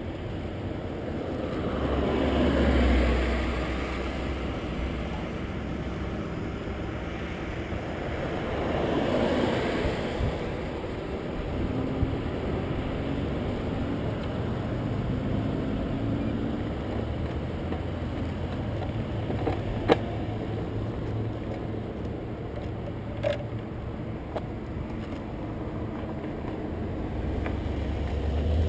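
Roadside traffic: two vehicles pass, around 3 s and 9 s, each swelling in loudness and falling in pitch as it goes by. Two short sharp clicks come in the second half.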